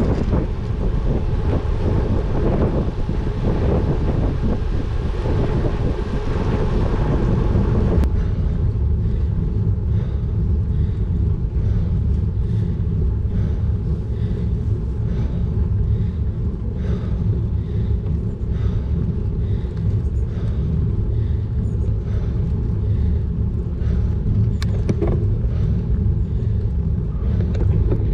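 Wind noise on a bike-mounted GoPro Hero 9 Black's microphone, with tyre hiss on a wet road. About eight seconds in the sound changes abruptly to a lower, steadier rumble at slow climbing speed, with faint scattered ticks.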